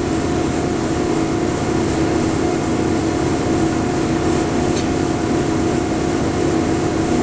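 Steady machine hum with a constant pitched tone from a running shop machine, and one light click about five seconds in.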